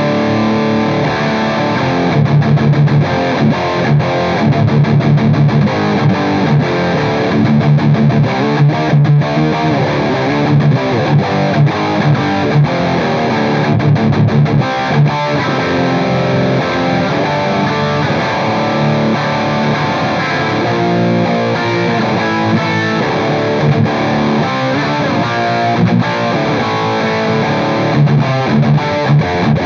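Electric guitar played through a Soldano SLO high-gain distortion pedal, with the mid knob turned fully up and the Depth switch on. It is a continuous heavily distorted riff with chugging low notes.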